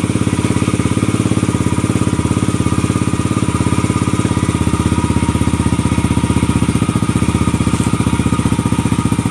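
Yamaha TT-R110 pit bike's single-cylinder four-stroke engine idling steadily through a newly fitted FMF aftermarket exhaust, with an even, lower exhaust note.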